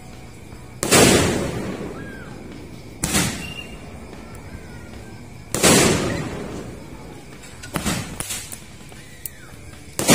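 A jumbo eight-shot Roman candle firework firing: a loud bang every two to three seconds, each echoing away, with a few smaller pops about eight seconds in.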